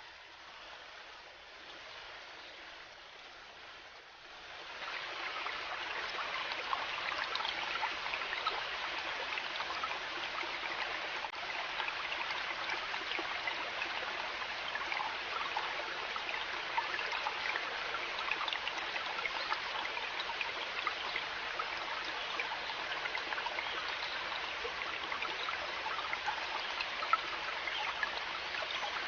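River water flowing and babbling over stones, a steady rushing with fine splashy ripples that turns clearly louder about four and a half seconds in.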